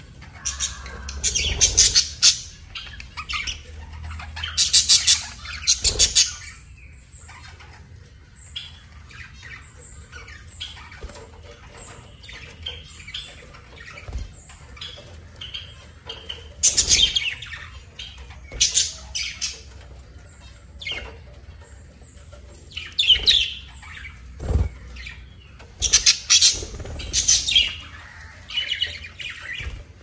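A flock of budgerigars chattering, with loud bursts of harsh squawks and chirps every few seconds between softer twittering.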